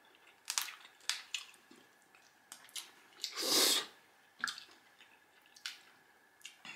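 Close-miked eating sounds: wet mouth clicks and smacks while chewing crab meat in butter sauce, with one longer, louder sucking sound about halfway through as the meat goes into the mouth.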